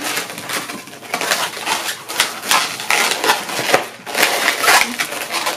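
Inflated 260 latex modelling balloons rubbing and squeaking against each other and against the hands as they are twisted and pressed together, in irregular scratchy strokes.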